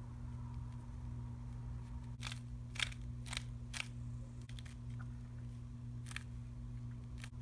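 Rubik's cube faces being twisted by hand: sharp plastic clicks, a couple a second, starting about two seconds in, over a steady low hum.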